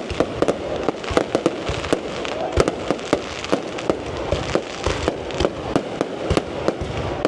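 Fireworks display: a rapid, irregular string of sharp bangs, several a second, over continuous crackling.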